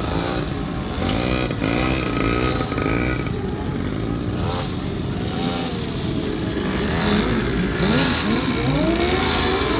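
Several motorcycle engines revving up and down over and over, their revs overlapping. A steady high whine runs through the first three seconds or so.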